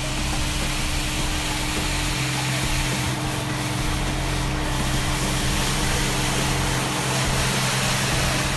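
Hako Citymaster 600 implement carrier running steadily while its front rotary broom spins, with a constant engine hum under the loud hiss of the brush sweeping and throwing snow.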